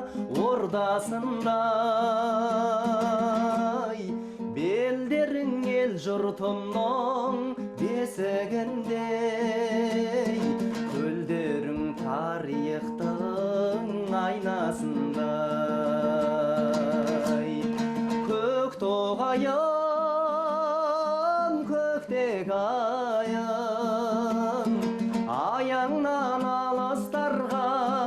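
A song: a singer's melody with a marked vibrato over a plucked-string accompaniment and steady held low notes.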